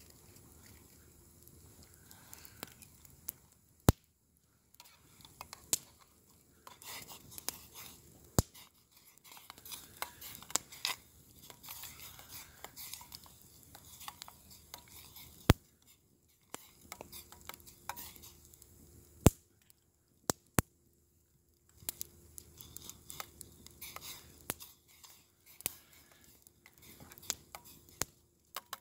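Wood campfire crackling, with sharp single pops every few seconds, over soft scraping and clinking of a utensil stirring a metal pot of soup.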